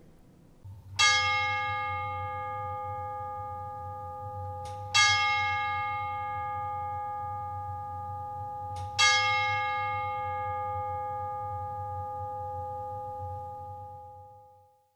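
A bell struck three times, about four seconds apart, each stroke ringing on and slowly fading, over a low steady hum. The last stroke dies away just before the end.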